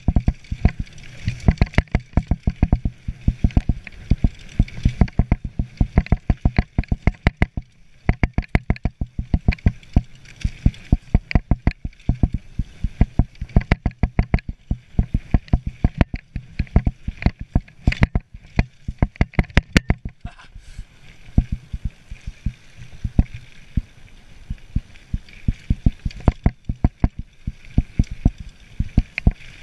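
Mountain bike clattering over a rough dirt trail at speed: a dense run of irregular knocks and rattles over a steady rumble of tyres and wind.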